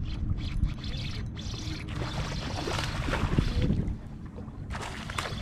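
Water splashing and sloshing at the surface beside a small boat as a hooked fish thrashes, over a low steady rumble. The splashing eases briefly, then comes back in a louder burst near the end.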